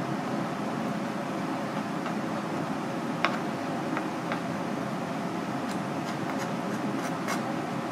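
Kitchen knife ticking lightly against a cutting board while slicing raw clam meat, a few scattered clicks with the sharpest about three seconds in and a quick cluster near the end, over a steady fan-like background hum.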